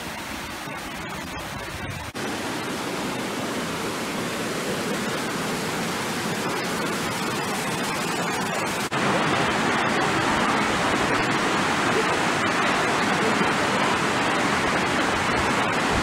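Hot spring water of the Saturnia cascades pouring over travertine terraces: a steady rush of falling water that steps up louder about two seconds in and again about nine seconds in.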